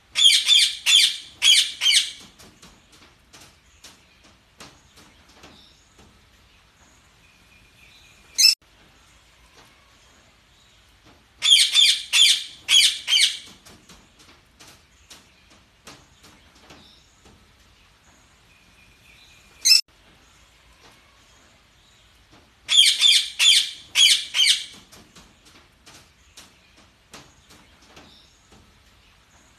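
Budgerigars chirping: three loud bursts of rapid high chirps, each about two seconds long and about 11 seconds apart, with a single sharp chirp between bursts and faint scattered clicks in the gaps.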